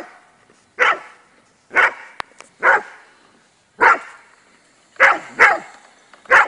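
A dog barking repeatedly, seven barks about a second apart, with two barks close together about five seconds in.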